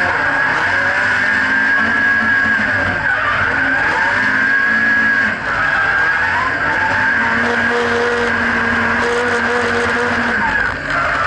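The turbocharged SR20DET four-cylinder of a Nissan 180SX drift car running hard, heard from inside the cabin, with its rear tyres squealing through a slide. The revs rise and fall, and the sound dips briefly about five seconds in and again near the end.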